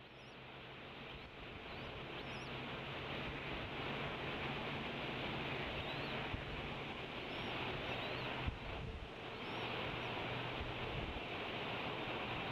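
Steady hiss of the eagle nest camera's outdoor microphone, fading in over the first few seconds, with a low steady electrical hum under it. A few faint, short, high bird chirps rise and fall above the hiss.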